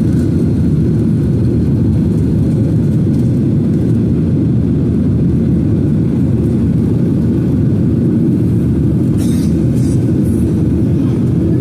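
Steady in-flight cabin noise of a Boeing 737-800: an even low rumble of its CFM56 jet engines and the air rushing past the fuselage. A few faint clicks come near the end.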